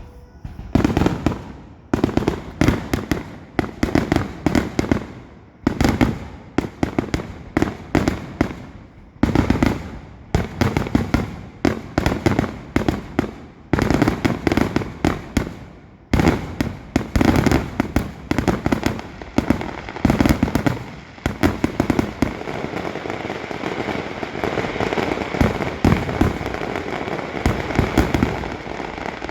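Fireworks display: loud bangs from bursting shells come in quick clusters, often several a second, with short gaps between volleys. From about two-thirds of the way through they run together into a near-continuous mass of booms and crackling.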